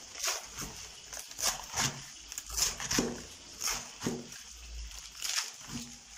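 Kitchen knife slicing raw white cabbage into thin shreds: a run of crisp crunching cuts, about two to three a second.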